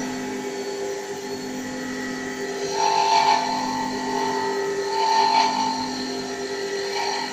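CA-160 mini CNC wood lathe running while it turns a wooden pen blank: a steady machine hum, with a higher whine that rises and fades twice, about three seconds in and again around five seconds.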